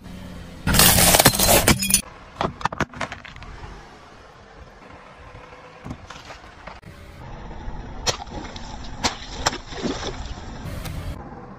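A car tyre rolls over and crushes things. About a second in, peanuts in their shells give a loud, dense burst of crackling and crunching. Scattered cracks and pops follow, then a few sharp snaps later on as other items are crushed.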